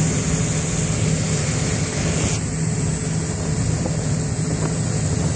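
Damen FCS 3307 fast crew supplier under way at speed: the steady drone of its diesel engines under the rush of the wake and wind over the open aft deck. The higher hiss drops off about two seconds in.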